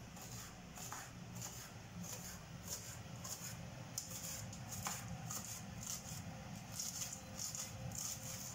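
Kitchen knife slicing green onions on a cutting board: soft, crisp cuts about twice a second, with the odd light tap of the blade on the board.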